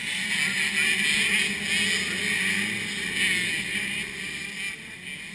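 A pack of motocross dirt bikes running together, their engines revving and rising and falling in pitch as they accelerate. They are loudest in the first three seconds and fade toward the end.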